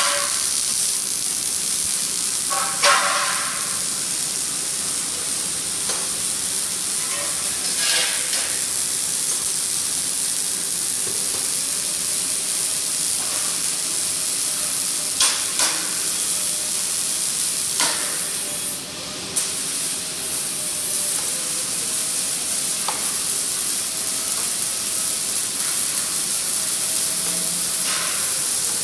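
Robotic MIG welding arc sizzling steadily, with sharp crackles now and then. A faint wavering hum runs under it in the second half.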